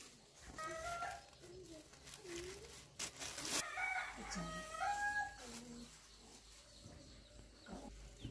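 A rooster crowing: a short call about half a second in, then a longer crow in stepped pitch about four seconds in. A brief noisy burst sounds just before the long crow.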